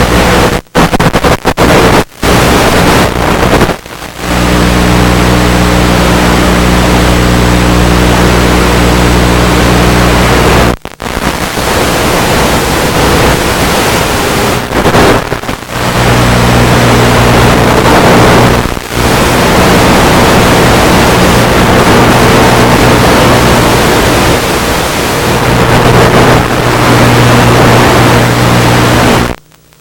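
FPV quadcopter motors and propellers running loudly, a steady buzzing drone over a rushing noise. The sound drops out briefly several times, most sharply about eleven seconds in and near the end.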